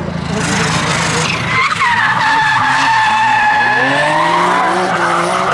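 A Suzuki Alto kei car drifting, its tyres screeching in a long skid. About a second and a half in, the screech settles into a steady squealing tone, and in the second half the small engine revs rising.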